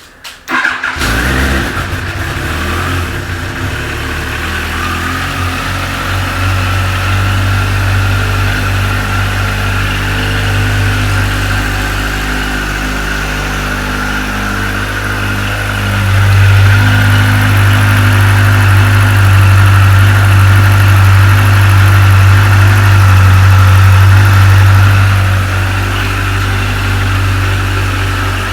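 Yamaha FJ 1200's air-cooled inline-four engine starting and running cold: it catches in the first second, then idles steadily. The engine is cold, so it runs lazily; the running gets louder about halfway through and settles back near the end.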